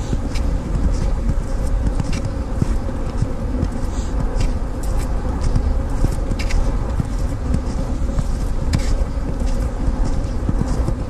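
Footsteps crunching on a snowfield at an irregular walking pace, over a steady loud rumble of wind on the microphone.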